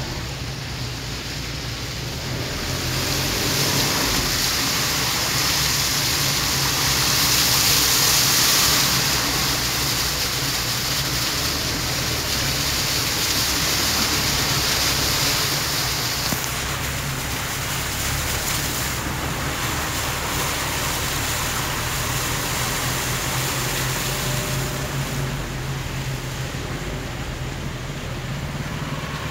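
A car moving slowly on a flooded, wet road, heard from inside the cabin: a low steady engine hum under a hiss of water. The hiss grows louder about three seconds in and eases after about sixteen seconds.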